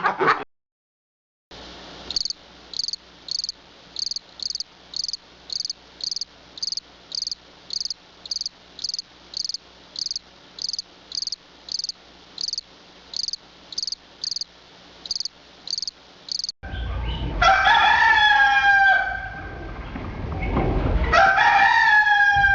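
A cricket-like insect chirping in short, high, evenly spaced pulses about twice a second for around fifteen seconds, then a rooster crowing twice, the second crow starting about three seconds after the first.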